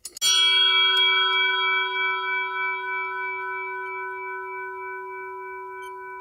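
A single struck metal bell rings out about a quarter second in, with several clear overtones over a low tone, and slowly fades.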